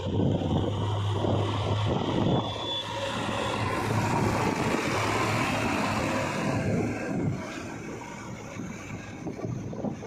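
JCB 3DX backhoe loader's diesel engine running steadily as the machine drives along a road, with wind buffeting the microphone; it is louder for the first seven seconds or so, then quieter.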